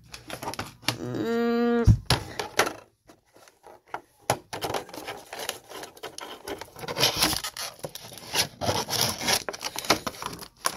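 Scraping, rubbing and clicking of a toy figure's plastic packaging and tray being handled and worked open, with a brief steady pitched tone about a second in that cuts off sharply.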